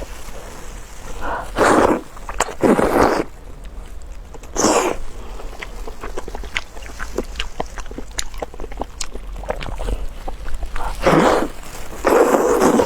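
Close-miked eating: small wet mouth clicks of chewing, broken by five short, loud mouth noises.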